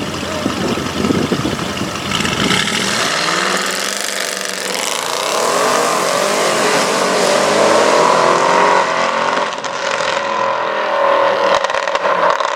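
Audi RS6 pulling away hard. A rough low exhaust rumble is followed, from about two seconds in, by an engine note that climbs steadily and then holds high and loud, with a brief dip near ten seconds.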